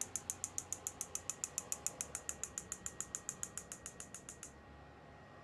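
Rapid, even ticking of a small device, about nine high-pitched ticks a second, growing fainter and stopping about four and a half seconds in.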